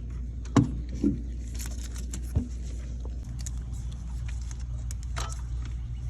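A few sharp metallic clinks and knocks, the loudest about half a second in, over a steady low hum.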